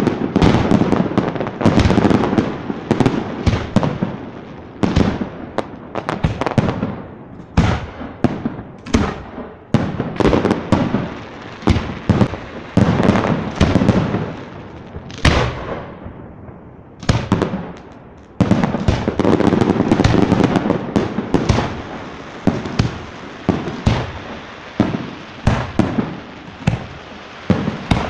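Fireworks display: aerial shells bursting in a rapid, near-continuous barrage of sharp bangs. It thins out briefly a little past halfway, then picks up again into a dense run of bursts.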